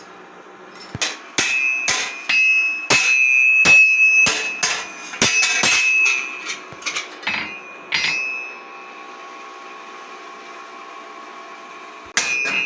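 Hand hammer striking iron on an anvil while forging a hoe: an irregular run of ringing blows, about two to three a second, that stops about eight seconds in. A steady hum carries on through the pause, and the blows start again near the end.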